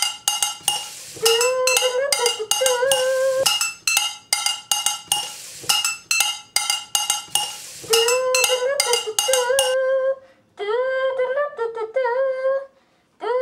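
A frying pan struck with a chopstick in a quick beat, each hit ringing with several metallic tones, layered with a boy humming a tune. About ten seconds in the pan beat stops and only the humming carries on in short phrases, sung into a plastic cup.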